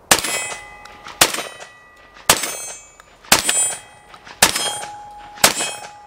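Remington V3 TAC-13 12-gauge semi-automatic firing six rounds, about one a second: three bird-shot loads, then three heavier-recoiling Federal Hybrid 5-shot loads. A ringing tone lingers after several of the shots, as steel targets are hit.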